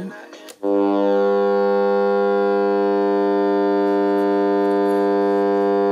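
Alarm buzzer of a 1973 Sanyo RM 5320 flip-clock radio sounding: a steady, unbroken buzz tone that starts abruptly about half a second in and holds at one pitch and level.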